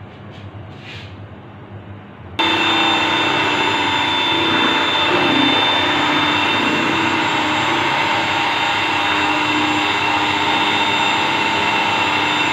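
Electric blender (mixer-grinder) switched on suddenly about two and a half seconds in, its motor running loud and steady with a high whine while it blends the cream and condensed-milk ice-cream mix.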